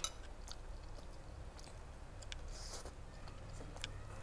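Person chewing a mouthful of papeda (sago porridge) and fish soup, close to the microphone, with scattered small mouth clicks and a brief breathy hiss about two and a half seconds in.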